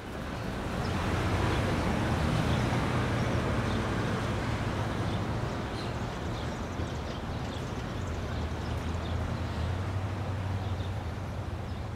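Steady outdoor ambience: a constant low rumble of road traffic with a broad hiss over it and a few faint high chirps.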